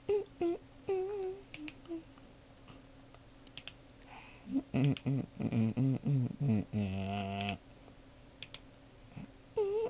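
Computer mouse and keyboard clicks, with a person humming a short run of notes about halfway through that ends in a buzzy held note.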